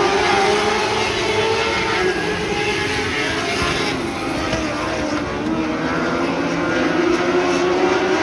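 Winged lightning sprint cars racing on a dirt oval, their engines running at high revs. The pitch eases a little through the middle and climbs again near the end as the cars come off a turn.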